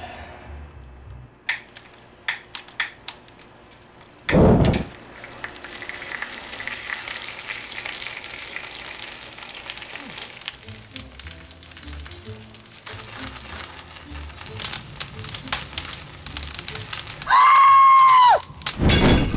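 Food frying in a pan with oil, a steady sizzle that starts with a loud burst about four seconds in after a few sharp clicks. Near the end comes a short high-pitched cry, then another loud burst.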